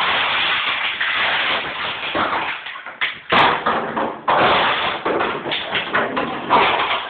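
French bulldog chewing and batting a plastic water bottle: dense crackling and crunching of the plastic, with taps and thuds as the bottle knocks about.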